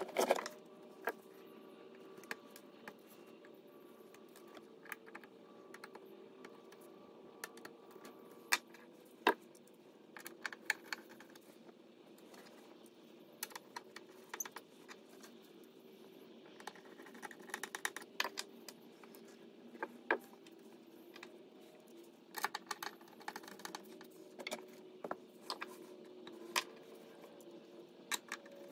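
Scattered light clicks and taps of small hard objects being handled, some coming in quick rattling runs, over a faint steady hum.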